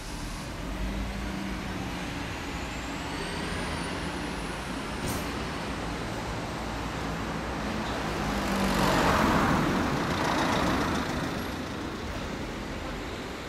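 Street traffic noise, with one vehicle passing close by that swells and fades, loudest about nine to ten seconds in.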